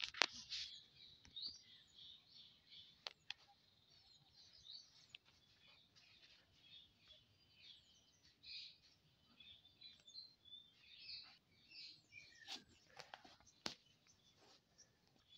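Faint birdsong: small birds chirping repeatedly in the background, with a few sharp clicks, one right at the start and two near the end.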